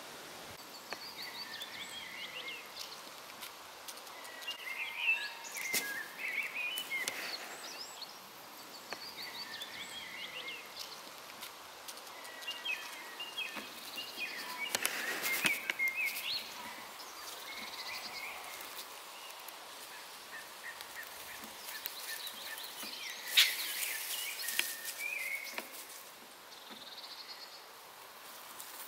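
Songbirds singing: short chirping phrases, several falling in pitch, repeated every few seconds. There are a few brief rustles of vegetation, and a sharp snap about four-fifths of the way in is the loudest sound.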